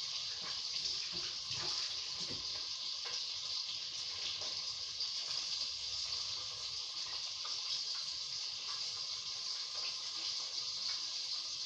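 Tomato mixture frying in a cooking pot: a steady sizzle.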